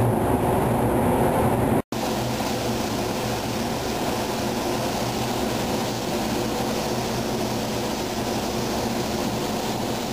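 Steady rushing air from a gravity-feed automotive paint spray gun laying down a coat of color, mixed with the paint booth's airflow. The sound drops out for an instant about two seconds in, then resumes unchanged.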